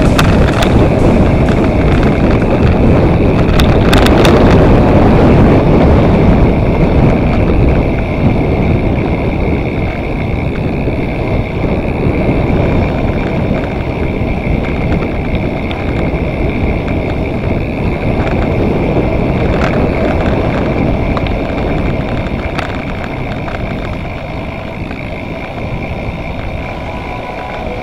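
Wind rushing over the camera microphone together with tyre rumble as a mountain bike coasts fast down a paved road. The rush is loudest in the first several seconds and fades as the bike slows.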